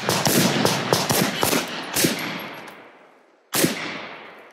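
Carbine and handgun gunfire from several shooters at once. A fast string of overlapping shots runs for about a second and a half, then one more shot comes at about two seconds and a last single shot near the end, each ringing out as it fades.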